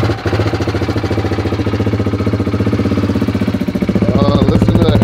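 Husqvarna 701 Supermoto's single-cylinder four-stroke engine catching on a cold start and settling into a steady idle with an even, rapid beat of firing pulses, a little louder after about four seconds.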